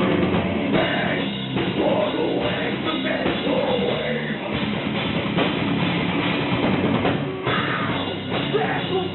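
Heavy metal band playing live, a full band with drum kit, loud and continuous.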